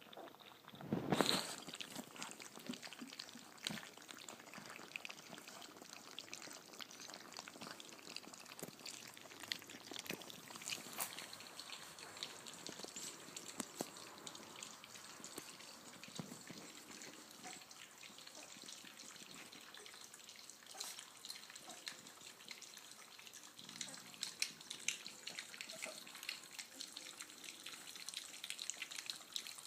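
Three-and-a-half-week-old puppies feeding: a long run of small, wet, irregular clicking sounds. There is one brief louder noise about a second in.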